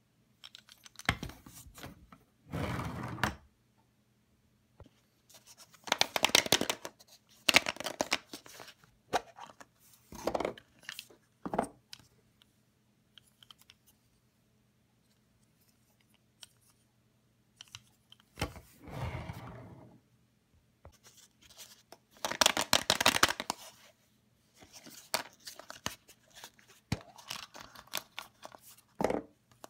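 Hands pulling open plastic surprise eggs and handling small toy train engines: irregular bursts of rustling, scraping and tearing noises with quiet gaps between them.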